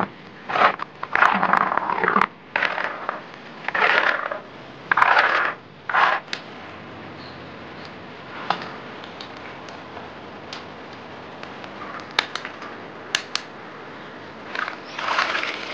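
A stone mill grinding soaked soybeans into slurry, giving a run of short grating, crunching strokes. A few light knocks follow. Near the end soy milk gushes from a plastic bucket into a large metal basin for about a second.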